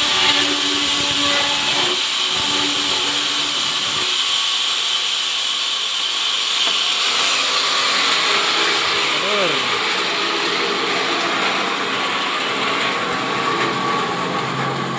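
Vertical band sawmill running with a loud, steady mechanical whirr and hiss.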